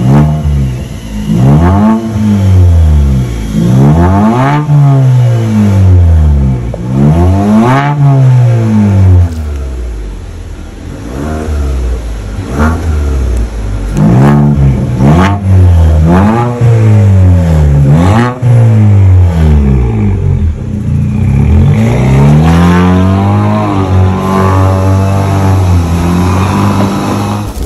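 Ford Focus 1.5 EcoBoost turbo engine revved through the open vacuum exhaust valve of a resonator-deleted exhaust: a quick rise and fall of revs every second or two, then a longer run of rising revs as the car pulls away.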